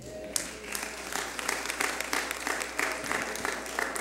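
Church congregation applauding: many hands clapping in a dense, steady stream.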